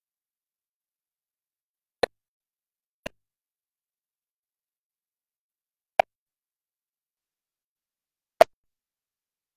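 Four short, sharp clicks, unevenly spaced, with dead silence between them.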